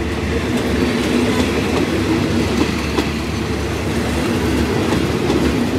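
Passenger coaches of a Thai express train rolling past at speed, a steady rumble of steel wheels on the rails with a few faint clicks from the rail joints.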